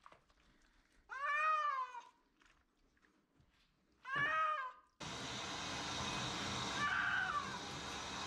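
Persian cat meowing twice in protest at its bath, each a drawn-out call rising and then falling in pitch. About five seconds in, a handheld shower sprayer starts a steady hiss of water over the wet cat, with a fainter meow under it.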